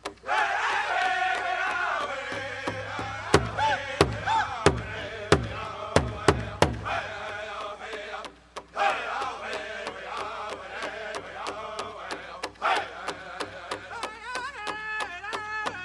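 Pow wow drum group singing a chicken dance song in chanted voices over a fast, steady beat on a large shared drum. From about three to seven seconds in, a run of louder, heavier drum strokes stands out, and there is a brief break about eight and a half seconds in.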